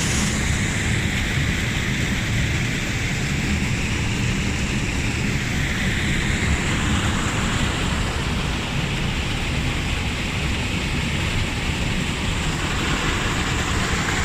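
Small waterfall rushing steadily, with wind buffeting the phone's microphone in the low end.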